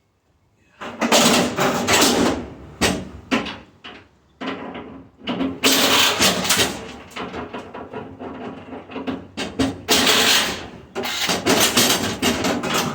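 Tool work on a stainless steel restaurant dishwasher being taken apart: loud, irregular bursts of metal noise in spells of one to three seconds, with short pauses between them.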